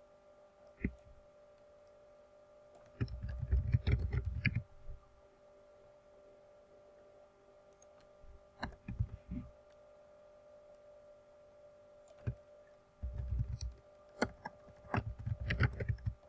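Computer keyboard typing in a few short runs, clicky keystrokes with a dull thud under each, over a steady hum.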